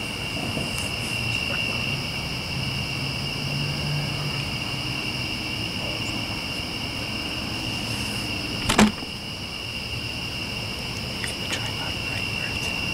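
Crickets trilling in a steady chorus, with a single sharp click about nine seconds in.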